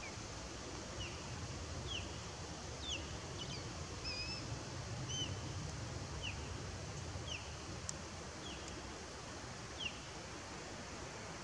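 Osprey calling: a series of short, sharp whistled notes, each falling in pitch, about one a second, over a steady low background rumble.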